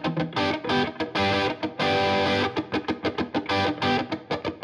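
Intro music: a quick run of short, evenly spaced notes, with a longer held chord a little before the middle.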